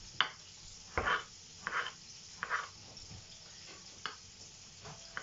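Kitchen knife slicing cherry tomatoes on a wooden cutting board: about eight short, separate cuts, each ending in a soft knock of the blade on the board, roughly one every half second to a second.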